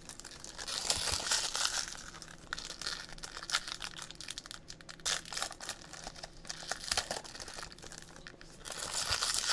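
Trading card pack wrappers crinkling and tearing as packs of 2016 Topps Finest baseball cards are opened by hand, with dense irregular crackles and rustles.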